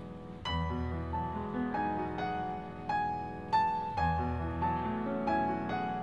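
Background piano music: a slow melody of struck notes over sustained chords, with a deep bass note coming in about half a second in and again about four seconds in.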